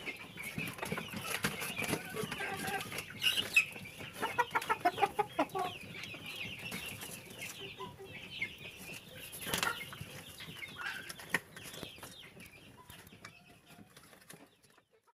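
Chickens clucking in quick runs of short calls, loudest a few seconds in, fading out near the end.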